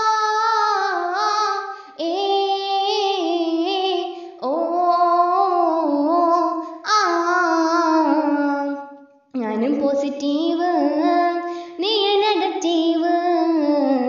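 One high voice singing a Malayalam nadan pattu (folk song) in short phrases of about two seconds, with brief breaks between them.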